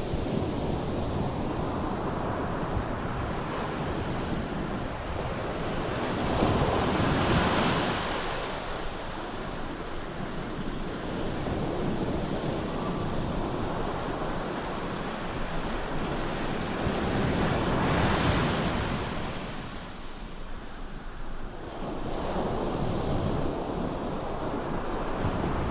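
Ocean surf: a steady wash of waves breaking on a beach, swelling louder twice as larger waves break, once about six seconds in and again around eighteen seconds.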